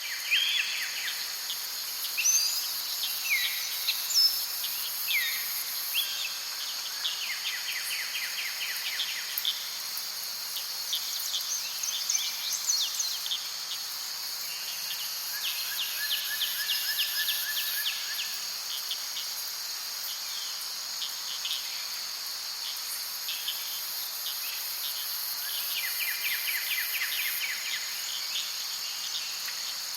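Forest ambience: a steady high-pitched drone of insects runs throughout, with a second, higher insect layer that drops out and returns twice. Over it, birds give scattered chirps, sweeping calls and rapid trills.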